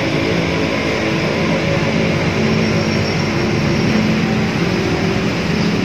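Steady engine noise of a running motor vehicle, with a low hum over a wide rushing noise.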